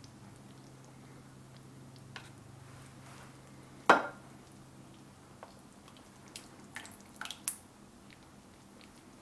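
Plastic ladle scooping chicken and sauce from a ceramic slow-cooker crock onto a plate, with soft wet squishing. Halfway through, the ladle knocks sharply once against the crock with a short ring, then makes a few lighter clicks near the end. A faint low hum fades out about halfway.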